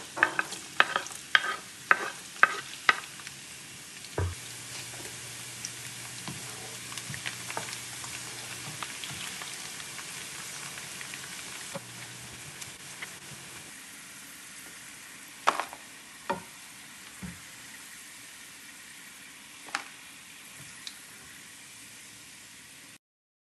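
Sliced garlic sizzling steadily as it fries in hot oil in a pan while being stirred with a spatula. In the first few seconds there is a quick run of sharp taps as the garlic is knocked off a wooden cutting board into the pan, and later a few knocks of the utensil against the pan.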